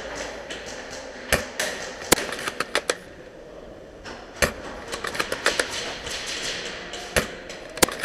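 Airsoft gunfire in a close-quarters fight: scattered sharp cracks, some alone and some in quick runs of three or four, over a steady hiss.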